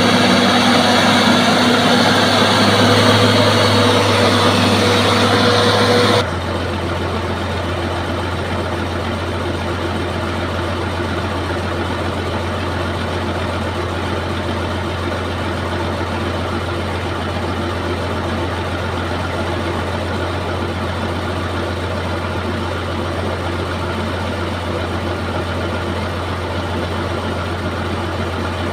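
Bulldozer's diesel engine running loud for about six seconds, then dropping suddenly to a steadier, quieter low hum.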